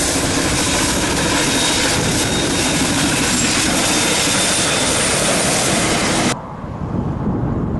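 NZR Ja class steam locomotive Ja 1271 and its carriages passing close by, a loud, steady rush of wheels and running gear. About six seconds in it cuts abruptly to a quieter, duller sound.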